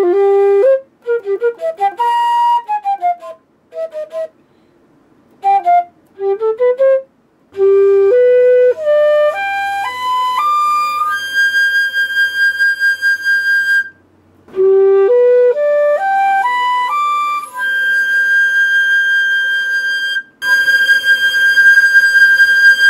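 Solo silver concert flute, a Haynes Q1, playing quick detached phrases, then twice a rising stepwise scale up to a long held high note. Near the end the held note comes from two flutes side by side, the Haynes Q1 in the left ear and a Jupiter in the right, for comparison.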